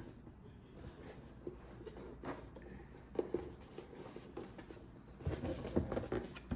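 Rubbing, scraping and small clicks of a box and its packaging being handled, growing busier and louder near the end.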